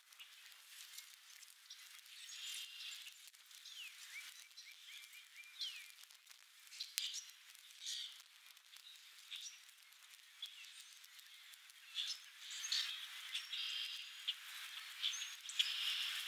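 Small songbirds chirping and singing, with many short calls and sliding notes that grow busier about three-quarters of the way through.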